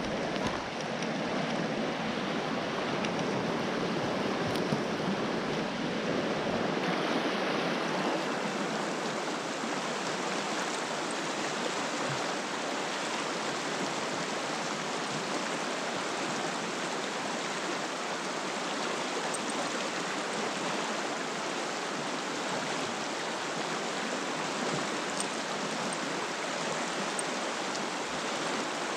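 Fast-flowing mountain river rushing over rocks: a steady, full rush of moving water, changing slightly in tone about seven seconds in.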